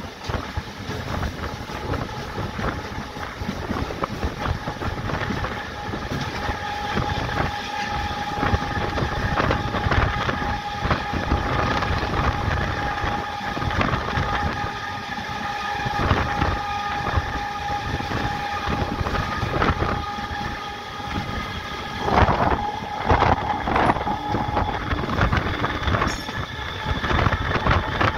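MEMU electric train running along the track, heard from inside a coach at an open door: wheels clacking over the rails with a steady whine through the middle of the run, and heavier clatter a few seconds before the end.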